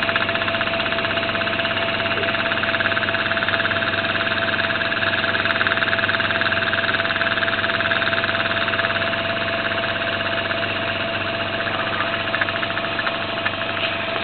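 Small model spool-valve engine running steadily at speed, a rapid even beat with a constant hum under it.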